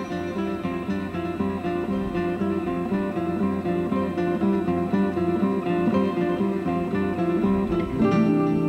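Instrumental background music with a quick, steady, repeating note pattern. It starts suddenly and settles on a held chord near the end.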